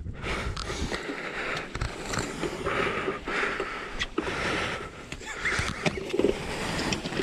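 Close handling noise: rustling of waterproof clothing and a fish weigh sling being moved about, with scattered knocks.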